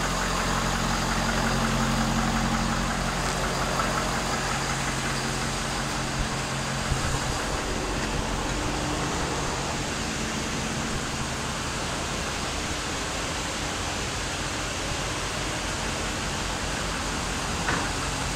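Ford F-550's Power Stroke V8 turbo-diesel idling quietly, "like a whisper": a steady low hum that weakens about a third of the way through.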